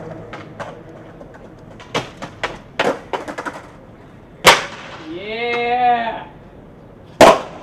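Skateboard on concrete: a run of light clacks from the board and wheels, then a loud slap of the board on the ground about four and a half seconds in and another near the end. Between the two slaps a person gives a short vocal cry.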